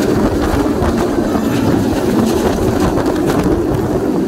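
Steel roller coaster train of a Bolliger & Mabillard stand-up coaster (Georgia Scorcher) running at speed through its track: a steady rumble of the wheels on the steel rails, mixed with wind rushing past the microphone.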